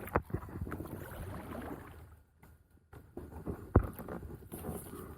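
Small knocks and rustling of a rope and gear being handled in a kayak, the kayak being tied off to steady it, with one sharp knock against the hull just before four seconds in.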